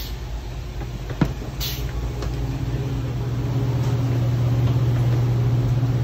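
Walk-in cooler's refrigeration unit humming steadily. The hum grows louder over the first few seconds, with a single sharp click about a second in.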